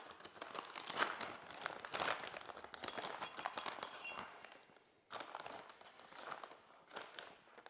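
Product packaging bag rustling and crinkling as it is opened and the parts pulled out, with scattered light clicks and knocks of handling.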